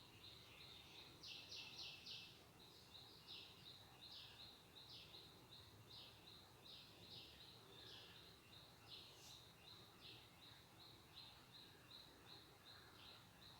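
Near silence with a bird chirping faintly and repeatedly, a quick run of four chirps near the start, over a faint steady high whine.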